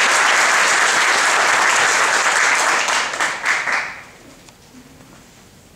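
Audience applauding: dense, even clapping that thins to a few scattered claps and dies away about four seconds in.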